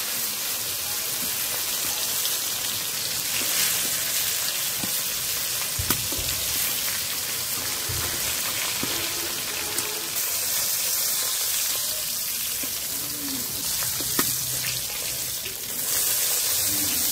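Pointed gourd pieces frying in hot oil in a kadai, a steady sizzle, with a few sharp clinks of a steel slotted spoon against the pan and plate as the fried pieces are lifted out.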